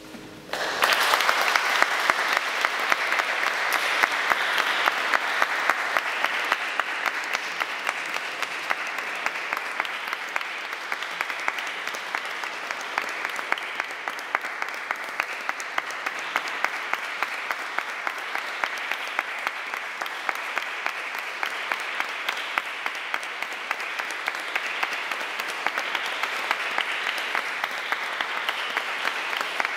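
Audience applauding, breaking out suddenly about a second in and going on steadily as dense clapping.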